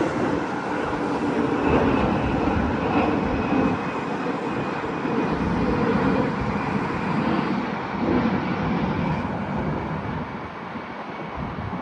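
Steady vehicle rumble that eases off near the end.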